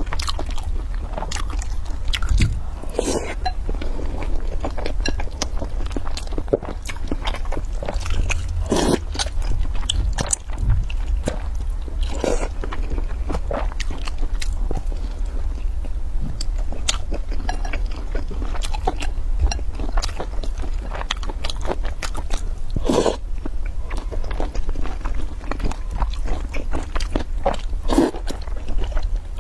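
Close-miked eating: noodles slurped up out of spicy broth and chewed, with irregular wet smacks, bites and clicks of the mouth and chopsticks, over a steady low hum.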